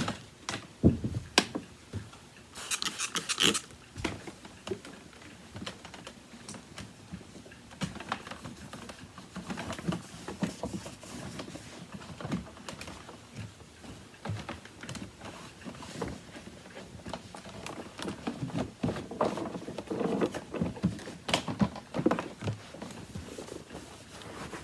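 Small clicks, taps and rubbing from handling and wiping down the body of an upright vacuum cleaner, with a short hiss about three seconds in.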